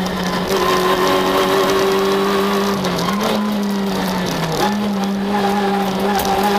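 Citroën Saxo VTS rally car's engine at speed, heard from inside the cabin, holding a steady high note. About four and a half seconds in the pitch dips briefly as the throttle is lifted, then picks straight back up.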